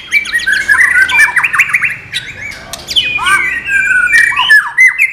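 White-rumped shama (murai batu) singing a fast, varied run of chirps and slurred whistles, with brief dips about two seconds in and near the end.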